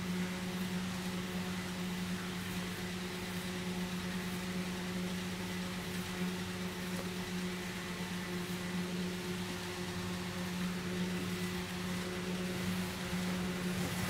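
Steady low hum of a running electric motor, with faint rustling of fingers rubbing through hair.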